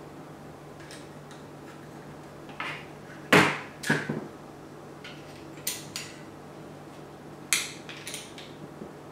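Scattered clicks and knocks of metal and hard plastic as a rifle action and its mounting bolts are handled and fitted into a new Magpul stock, with one sharper knock about a third of the way in. A faint steady hum runs underneath.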